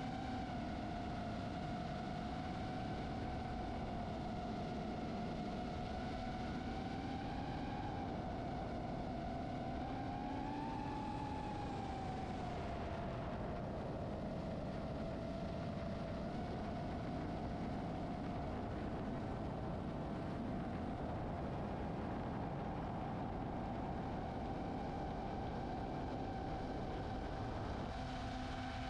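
DJI FPV drone's motors and propellers whining steadily, the pitch drifting up and down a little with the throttle and rising briefly about ten seconds in.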